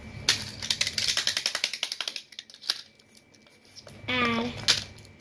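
Rapid plastic clicking for about two seconds, as a fidget toy is worked, then a single click later. A short pitched vocal sound comes about four seconds in.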